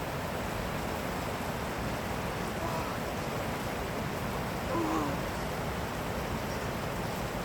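Steady rushing of falling water from a waterfall, with faint distant voices about three and five seconds in.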